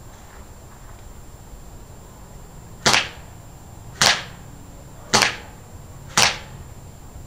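Airsoft gun fired four single shots in semi-automatic, about a second apart, each a sharp crack with a short tail as the pellets hit the foam armor plates at close range.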